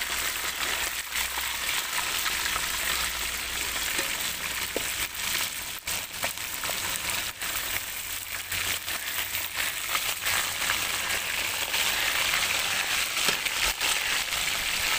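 Pieces of fish deep-frying in hot mustard oil in an aluminium karahi: a steady sizzle with many sharp crackles and pops throughout.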